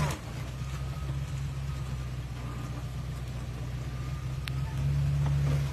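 Engine of a classic Range Rover running steadily at low revs as it crawls through deep mud, swelling louder briefly near the end.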